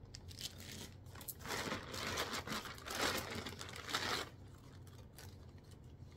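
Thin clear plastic packaging crinkling and rustling as it is handled, with small crackles, loudest from about one and a half to four seconds in, then stopping.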